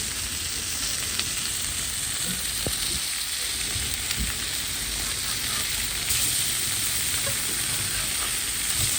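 Burger patties sizzling on a barbecue, a steady hiss that gets a little louder about six seconds in.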